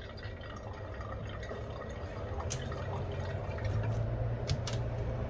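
Steady running water that grows slightly louder, over a low hum, with a few light clicks in the second half.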